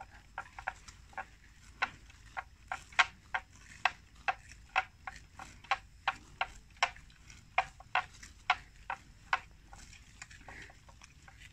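Water buffalo grazing, tearing and cropping grass with sharp crisp snaps, irregular at about two or three a second, thinning out near the end.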